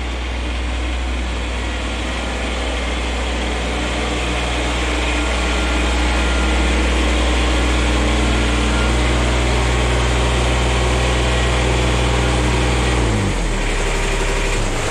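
Kubota BX sub-compact tractor's three-cylinder diesel engine idling steadily. About thirteen seconds in, its pitch drops as it slows down.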